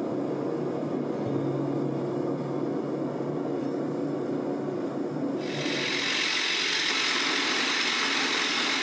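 Steady machine-like running noise in a blacksmith's shop. About five and a half seconds in it changes abruptly to a louder, steady hiss.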